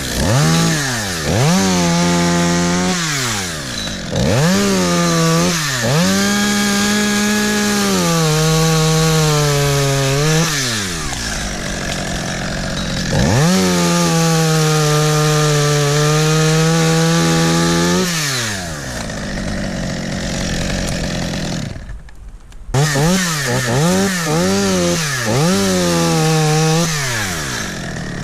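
Two-stroke chainsaw revved in quick blips, then held at full throttle for several seconds at a time, twice, its pitch sagging slightly as it cuts into spruce wood. It drops briefly to a low idle about two-thirds through, then is blipped again several times.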